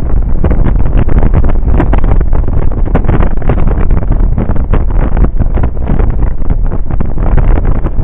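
Wind buffeting the microphone of a camera on a moving Suzuki Burgman 650 maxi-scooter at road speed. It is a loud, gusty rushing, with a deep rumble underneath.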